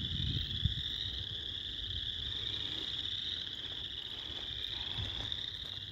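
A dense chorus of frogs calling continuously, blending into one steady high-pitched trilling din, with a low uneven rumble underneath.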